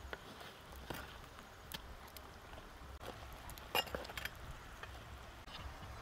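Utensils clinking against a metal cooking pot as pieces of cooked pork are lifted out: a handful of sharp, separate clinks, the loudest about four seconds in.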